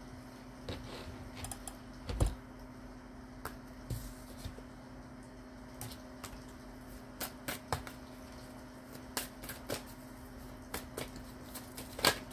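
Tarot cards being shuffled and handled: irregular light clicks and snaps, loudest about two seconds in and again near the end, over a faint steady hum.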